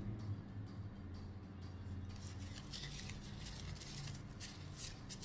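Crumpled tissue paper rubbing and rustling against a small plastic vape pod as it is wiped clean, a run of short scratchy strokes starting about two seconds in, over a low steady hum.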